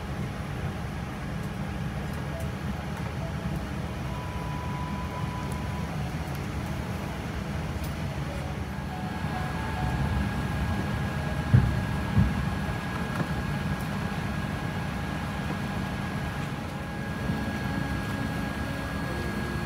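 Steady low cabin rumble inside a Boeing 787-10 airliner, with faint steady whines above it. Two short knocks come about halfway through.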